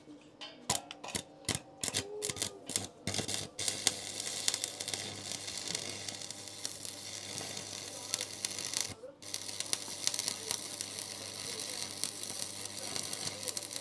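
A series of sharp knocks, then electric arc welding: a steady crackling sizzle over a low hum. The sizzle breaks off briefly about nine seconds in, then starts again.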